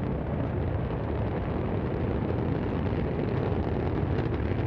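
Steady, deep rumble of the Orbital Sciences Antares rocket failing just after liftoff: its engine has failed and the rocket is falling back and burning over the launch pad.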